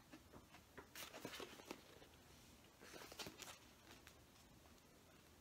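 Faint rustling of a paperback book's paper pages being handled and turned, in two short spells, about a second in and again about three seconds in.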